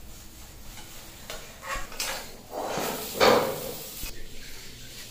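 Metal spatula scraping and clinking against a steel kadai and plate as fried brinjal slices are lifted out of the oil: a few separate scrapes, the loudest about three seconds in.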